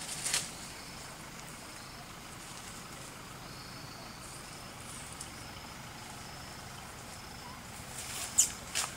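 Forest ambience: a steady low hiss with faint high thin tones, broken by short sharp clicks or rustles, one just after the start and two close together near the end, the first of those two the loudest.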